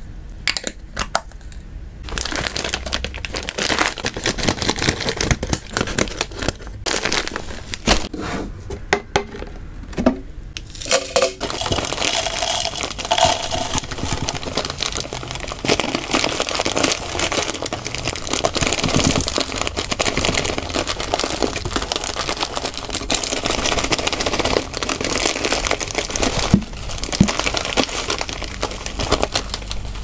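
Plastic-foil food bag crinkling while dry hamster food (small grains, then hay and dried herbs) pours and rattles into a clear plastic storage container. Scattered crackles and clicks at first, then a steady rustling pour from about the middle on.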